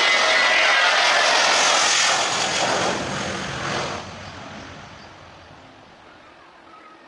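Passenger jet passing close, loud engine noise that falls away steadily after about four seconds as it moves off.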